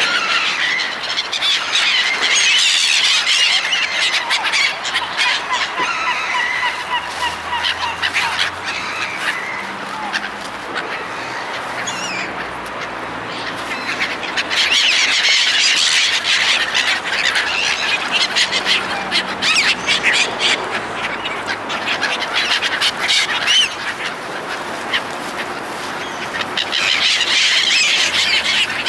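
A flock of gulls calling, many cries overlapping into a dense chorus that swells louder three times: at the start, in the middle and near the end.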